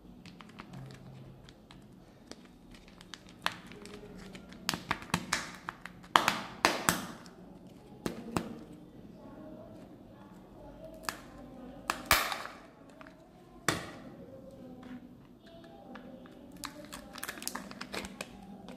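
A Kinder Joy-style plastic chocolate egg being handled and opened by hand: irregular sharp clicks, taps and crinkles of the plastic shell and its peel-off seal, in clusters with the loudest snaps about halfway through and again near the end.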